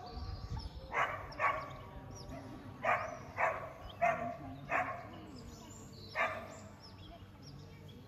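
A dog barking: seven short barks spread over about five seconds, several coming in quick pairs, with faint bird chirps behind.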